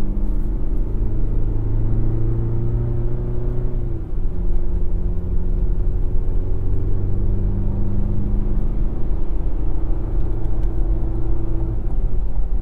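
2024 GMC Canyon AT4X AEV's high-output 2.7-litre turbocharged inline-four revving out under load while towing a trailer, heard from inside the cab. The engine note climbs, drops at an upshift about four seconds in, then climbs again.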